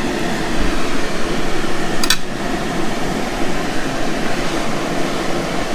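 Steady rushing air noise, like a fan running, with a single short click about two seconds in.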